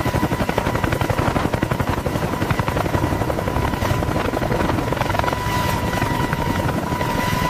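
Helicopter rotor chopping in rapid, steady beats, with a steady high whine over it.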